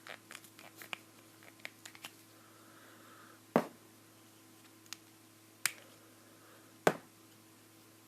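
Light clicks and taps of a plastic toy pony and its small plastic accessories being handled, with three sharper clicks about three and a half, five and a half, and seven seconds in.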